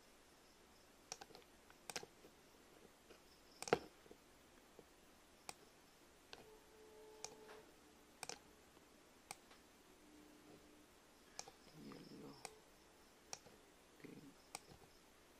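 Sharp single computer-mouse clicks, about a dozen at irregular intervals of roughly a second, with the loudest a little under four seconds in, over near silence.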